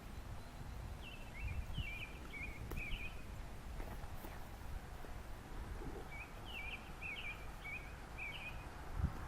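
A small bird chirping in two runs of short quick notes, one about a second in and another around six seconds in, over a steady low rumble, with a soft low bump near the end.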